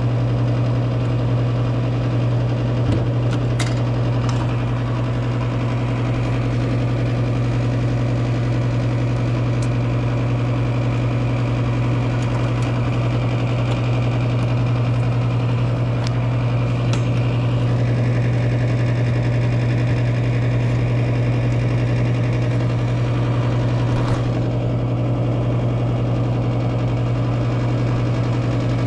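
A running machine's steady low hum, with a few faint clicks and taps over it.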